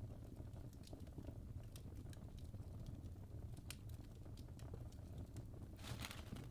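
Fireplace fire crackling: irregular small sharp pops over a steady low rumble, with one longer, hissing crackle near the end.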